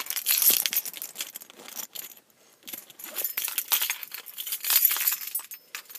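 A bunch of keys on a single keychain jangling as they are handled, a run of light metallic clinks that pauses briefly about two seconds in.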